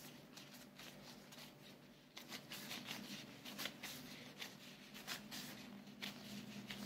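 Faint rustling and crinkling of clear disposable plastic gloves as hands press and shape a ball of sushi rice for nigiri, busier from about two seconds in, over a low steady hum.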